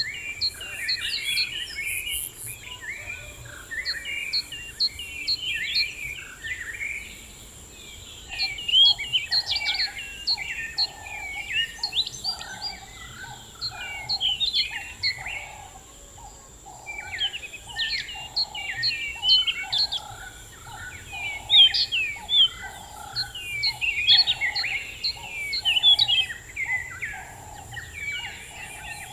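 Several birds singing together in quick chirps and trills. From about eight seconds in, a lower repeated note comes about twice a second under the song. A steady high-pitched tone runs underneath.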